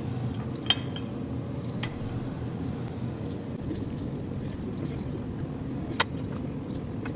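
Hands crumbing arancini balls in white ceramic bowls: two sharp taps against the bowls, one under a second in and one near the end, over a steady low hum.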